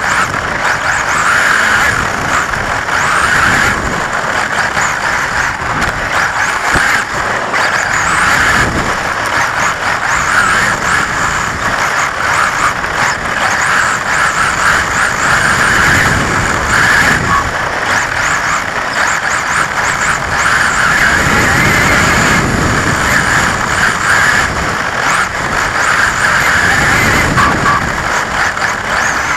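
XRAY XB4 1:10 four-wheel-drive electric buggy heard from its own onboard camera while racing: the electric motor and geared drivetrain whine, swelling and easing with the throttle, over the rush of tyres on artificial grass.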